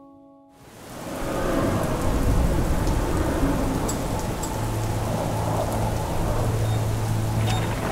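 Heavy rain fades in from a brief silence, with low thunder rumbling under it. A steady low hum joins about halfway through.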